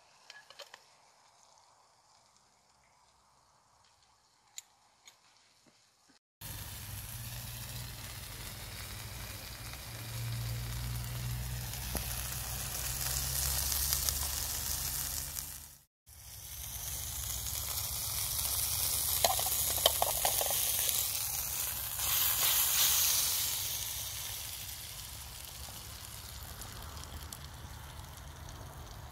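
A beef steak sizzling as it fries in butter in a pan heated by a log stove (Swedish fire torch). The sizzle starts suddenly about six seconds in, after a quiet stretch with a few faint clicks, and drops out briefly halfway through.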